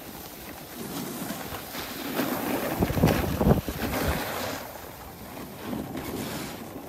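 Snowboards carving on packed snow, a rough scraping hiss that grows louder in the middle and eases off near the end, with wind buffeting the microphone.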